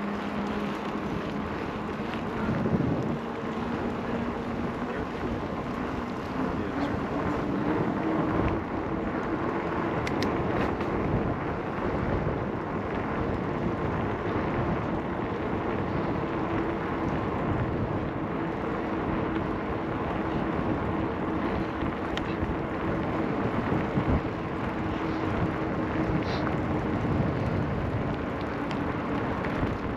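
Steady wind buffeting the microphone over a low rumble, with a faint steady hum underneath that rises slightly in pitch a few seconds in.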